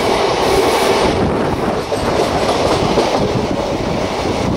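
Indian Railways express train coaches running along the track, heard through an open coach window: a steady, loud rumble with dense clatter of the wheels on the rails.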